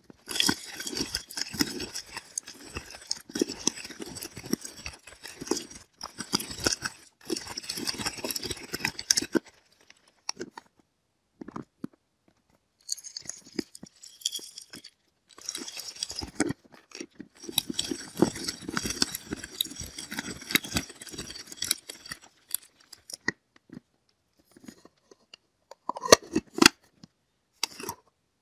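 Nuts being crunched in a hand-turned manual nut grinder: a dense crackling crunch in two long spells with a short pause between. A few separate clicks and knocks follow near the end.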